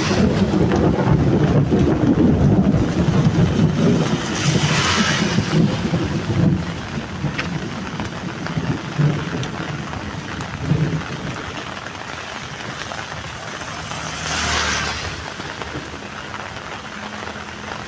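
Heavy rain falling steadily. A low rumble in the first few seconds fades away, and a steady low hum comes in near the end.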